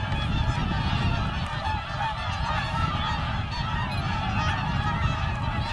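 A large flock of whooper swans calling together: a dense, steady chorus of overlapping trumpeting calls.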